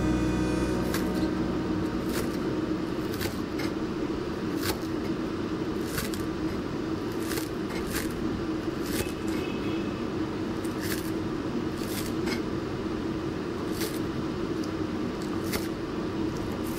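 Chinese cleaver chopping green onions on a wooden cutting board: sharp, unevenly spaced knocks, about one to two a second, over a steady low hum.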